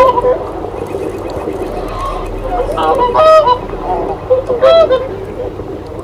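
Canada geese honking: a few short honks at the start, a cluster of them about three seconds in, and a couple more near the end.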